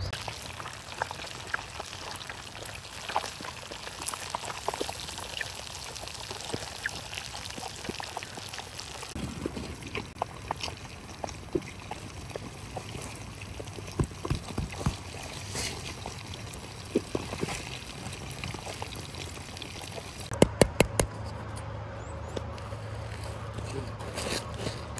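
Open wood fire crackling with scattered sharp clicks over a steady liquid pouring sound, with a quick run of loud clicks about twenty seconds in.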